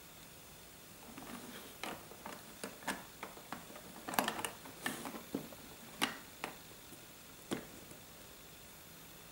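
Plastic Lego bricks clicking and clacking as a hand handles and pulls apart a brick-built model: a run of irregular light clicks and knocks, thickest around the middle, the last one about three-quarters of the way through.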